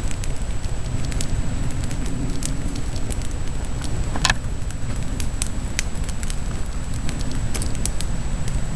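Wood campfire crackling, with scattered sharp pops and one louder snap about four seconds in, over a steady low rumble.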